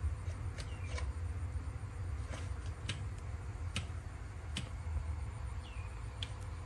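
Baby macaque sucking its thumb: scattered sharp, irregular sucking clicks, about seven in all, with a couple of short high chirps that drop in pitch, over a steady low rumble.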